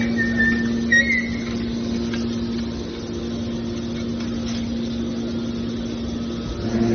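Hydraulic metal shear baler's power unit running with a steady hum, with brief high squeals about a second in.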